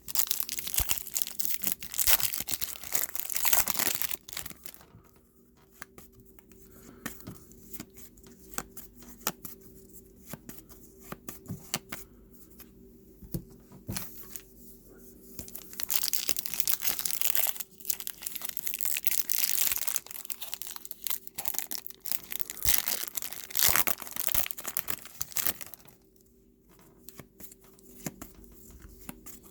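Trading card pack wrappers being torn open and crinkled, with the cards handled and flicked through in between. The loudest stretches of crinkling come at the start, about two-thirds of the way in, and again shortly after.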